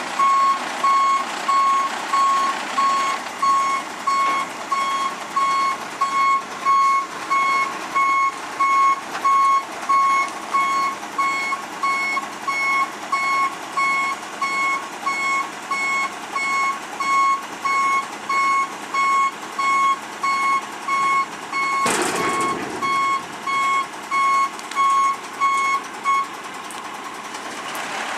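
Garbage truck's warning beeper sounding a steady single-tone beep, about one and a half times a second, over the truck's engine running. It stops shortly before the end. A short, sharp hiss cuts in about three-quarters of the way through.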